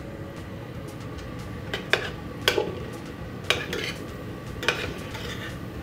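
Metal ladle stirring chopped pickles into fried vegetables in a steel stockpot, knocking against the pot's side with about five sharp clinks from about two seconds in. A steady low hum runs underneath.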